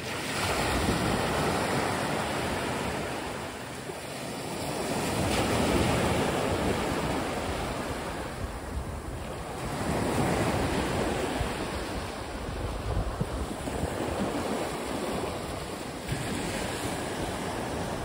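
Wind rushing over the microphone, a rumbling hiss that swells and fades every few seconds.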